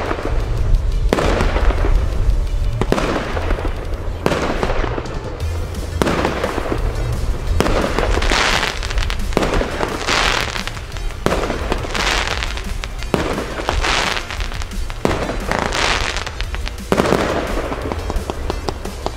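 Nico 'Bling Bling' compound firework battery firing shot after shot, about one every two seconds. Each burst is followed by a crackling hiss of stars.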